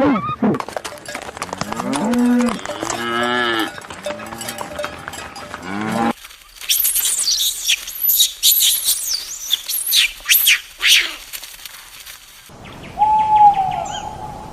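Cattle mooing: a series of drawn-out moos that bend in pitch over the first six seconds. The sound then cuts abruptly to rapid, very high-pitched chirping. About two seconds before the end, a single held whistling note takes over.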